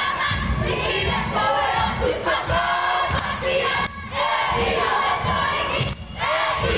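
Haka performed by a group of boys: many voices chanting and shouting in unison over a steady stamping beat, about two stamps a second. The chant breaks off briefly twice, about four and six seconds in.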